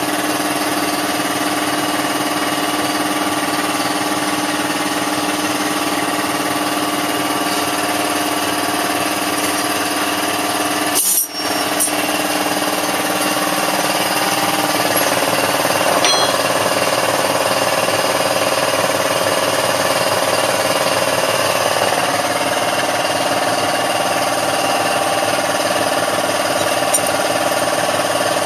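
Pneumatic hand tool running with a steady mechanical buzz. It cuts out for an instant about eleven seconds in, and a stronger mid-pitched tone joins from about fifteen seconds.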